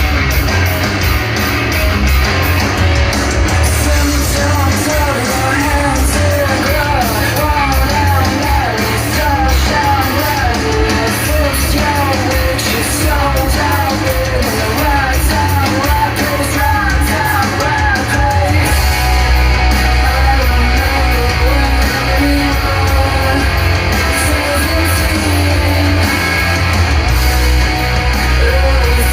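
A song with singing and guitar playing through a PHEANOO P15 2.1 sound bar and its subwoofer, with strong bass.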